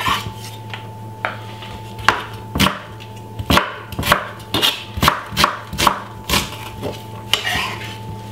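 Knife chopping white onion on a wooden cutting board: a run of about ten sharp knocks, roughly two a second, starting about two seconds in.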